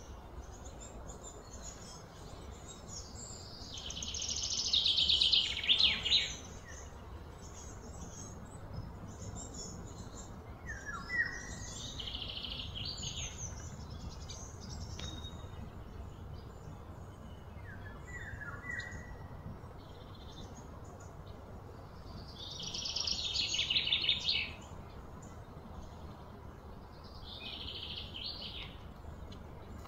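High-pitched animal calls from birds or insects: four bursts of rapid pulsing that swell over a few seconds and stop abruptly, the loudest about four seconds in and again near twenty-three seconds, with a few short falling chirps in between.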